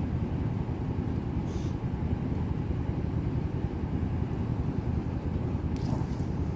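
A steady low rumble with no distinct events, and faint brief rustles at about one and a half seconds and near the end.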